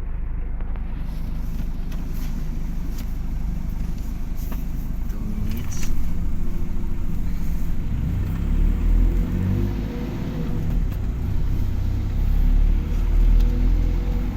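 A road vehicle's engine running with low road rumble, getting louder with shifting engine pitch from about six seconds in as it picks up speed.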